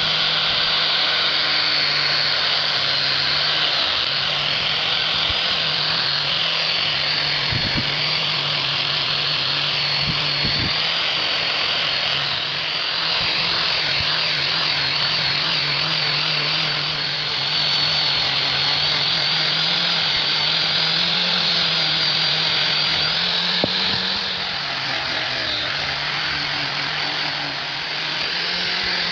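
A power tool's motor running steadily, with a low hum and a high whine that shift slightly in pitch, and a few light clicks.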